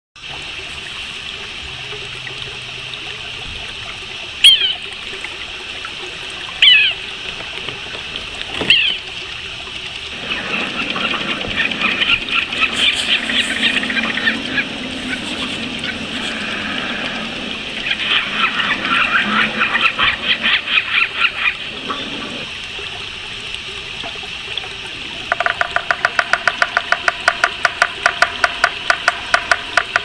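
Birds calling in bare winter trees: three sharp, separate calls in the first nine seconds, then a long stretch of busy chatter, then a fast, even run of repeated notes near the end. A steady hiss lies under it all.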